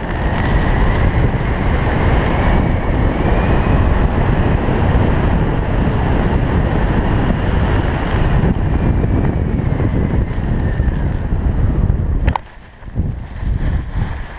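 Loud, steady wind rushing over a helmet camera's microphone as a skydiver flies a parachute canopy in to land. The wind noise drops off sharply about twelve seconds in as the jumper slows near the ground.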